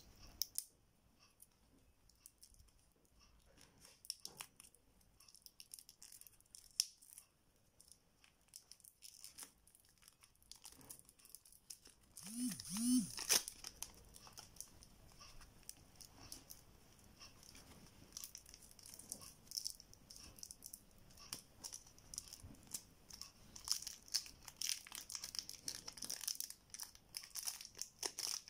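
Clear plastic shrink wrap being torn and peeled off a deck of playing cards: scattered crinkling and tearing, with a louder rustle a little before halfway and busier crinkling through the second half.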